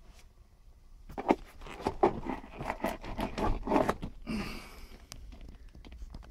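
Knocks, taps and clatter as stiff motocross boots are handled and shifted on a shelf, followed about four and a half seconds in by a short rustling scrape.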